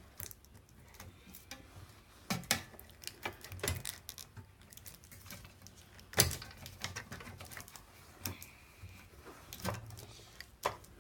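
Irregular small clicks and knocks of hands handling a battery, wire connectors and plastic body parts, with one louder knock about six seconds in.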